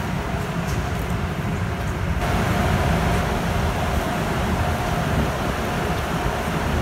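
Steady, loud mechanical drone of running machinery, heavy in the low end. About two seconds in the sound changes abruptly and a faint steady whine comes in over it.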